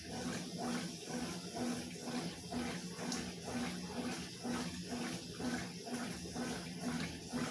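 Consul 12 kg top-loading washing machine agitating its rinse water, the wash sloshing back and forth at about two strokes a second over a steady motor hum.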